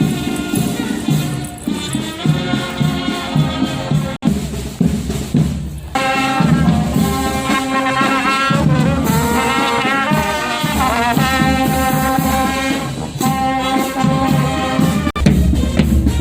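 Brass band playing with drums: trumpets and trombones holding notes over a steady drum beat. The music breaks off abruptly about four seconds in, resumes about six seconds in, and breaks again near the end.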